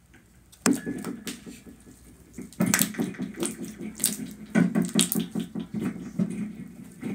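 Hands squishing and pressing a thick batch of slime on a tray: irregular wet squelches and sharp clicking pops, starting about a second in and coming in clusters.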